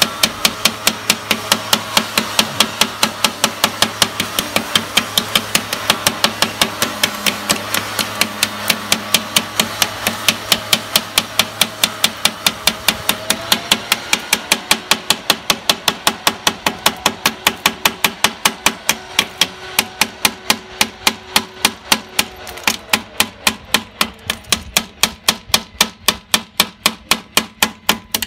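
A ball-ended metal tapping tool striking a scored glass pane in a fast, even rhythm of sharp taps, about four a second, chipping the glass out bit by bit inside the scored circle to open a round hole.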